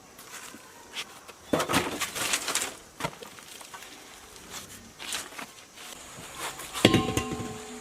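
Scattered light knocks and clatter, then near the end a metal piece is struck and rings briefly with a clear tone.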